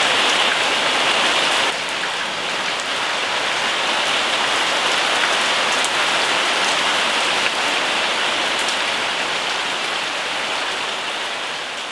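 Steady rain falling and splashing on wet ground and puddles, a dense, even hiss. About two seconds in it drops a little in level and turns duller.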